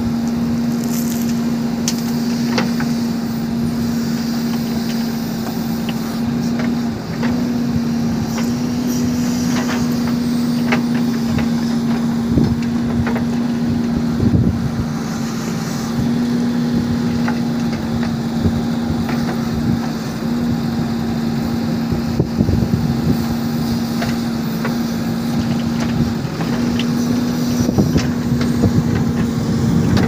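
JCB 3DX backhoe loader's diesel engine running at a steady drone while it digs and loads, with scattered knocks and clatter of rock and dirt against the bucket and into the tipper truck's steel body.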